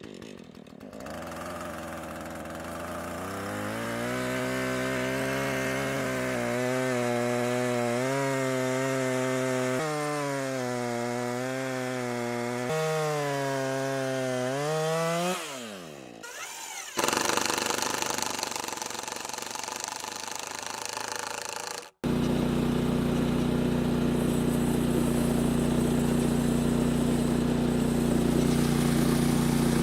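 Small gasoline engine on a portable band sawmill, revving up and running under changing load with its pitch wavering, winding down about fifteen seconds in; after a sudden cut it idles steadily.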